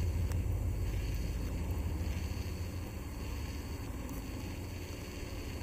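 Wind buffeting the camera microphone: a steady low rumble with a faint hiss over it.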